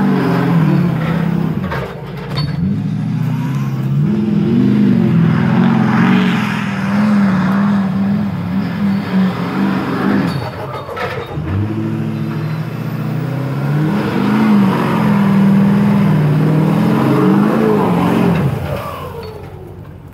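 Duramax 6.6 L V8 turbodiesel of a Chevrolet Kodiak 4500 4x4 truck revving up and down again and again as the truck is driven hard through snow. It runs in two long spells with a brief drop about ten seconds in, and fades away near the end.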